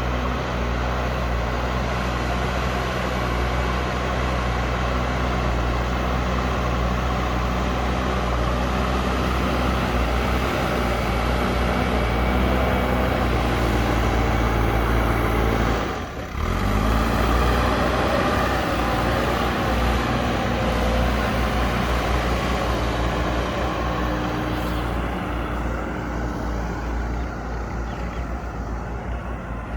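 JCB backhoe loader's diesel engine working steadily under load. About halfway through the sound drops out briefly, and then the engine note climbs as it picks up again.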